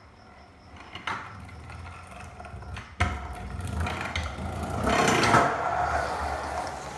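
Kick scooter wheels rolling on concrete as the rider approaches and passes close by, with a knock about three seconds in. The rolling grows louder, peaks around five seconds and then fades.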